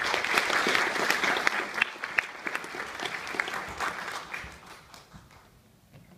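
Audience applauding, dense at first and dying away over about five seconds.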